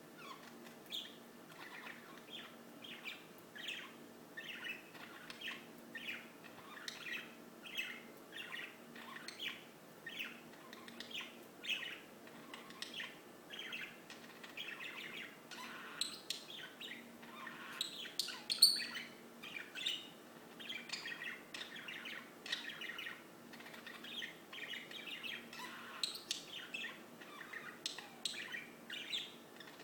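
Birds chirping and singing in quick, repeated short notes, with one sharper, louder note a little past the middle.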